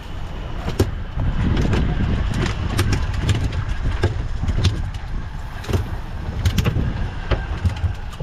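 Low steady rumble of a small boat at sea with its outboard motor running, broken by many irregular sharp clicks and knocks.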